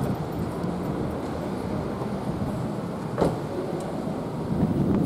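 Street traffic with a Manyo Line tram approaching on street-running rails, its rumble growing louder near the end. A single sharp click sounds about three seconds in.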